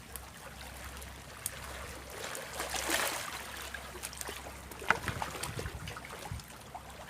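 Water trickling and splashing, with a few sharp clicks and knocks in between.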